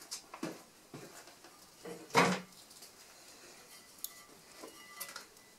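Cast aluminium car wheel being handled and moved: a few light knocks and clinks, with one louder clunk about two seconds in.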